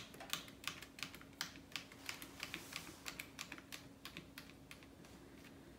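Light, irregular clicking and ticking of a small screwdriver backing a screw out of a plastic RC car chassis while fingers handle the parts. The clicks are thickest in the first few seconds and thin out toward the end.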